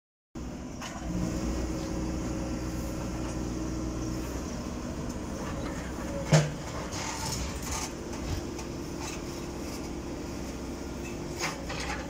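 Construction machinery's engine running steadily, with one sharp clank about six seconds in and a few fainter knocks near the end.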